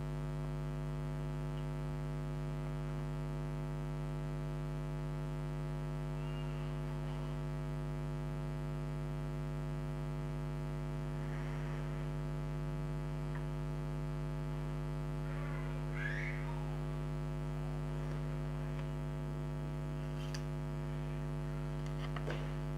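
Steady electrical mains hum, a low even buzz with no change in level.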